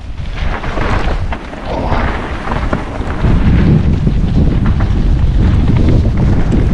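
Loud wind buffeting on the microphone of a mountain biker's camera, over the low rumble and scattered rattling clicks of the bike riding a dirt trail.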